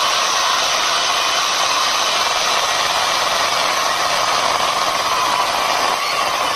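Electric wood planer running steadily, a loud, even machine whine that does not let up.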